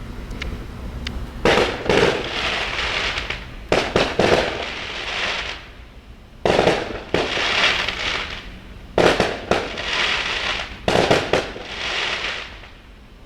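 Fireworks going off: a string of sharp bangs, mostly in pairs about half a second apart, each trailing off over a second or two.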